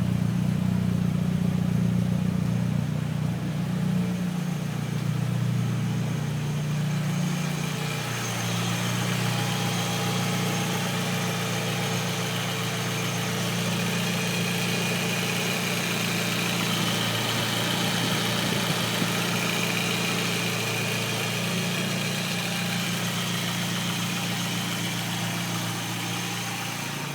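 Turbocharged Audi A4 B5 engine idling roughly, its low note wavering unevenly, after a GTRS Eliminator turbo kit, 630cc injectors and tune were fitted; the owner does not know the cause. A higher hiss joins the idle about seven seconds in.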